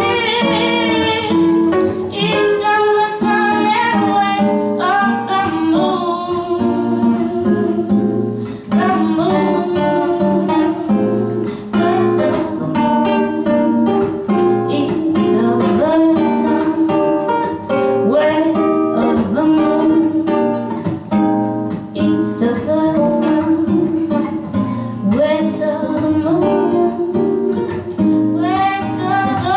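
A female jazz vocalist sings live, accompanied by a plucked guitar.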